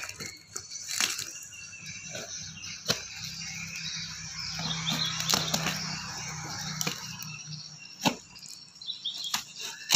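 Knife cutting through packing tape and cardboard, with tape ripping and cardboard flaps being torn and pulled back: a string of sharp cracks and rustling tears.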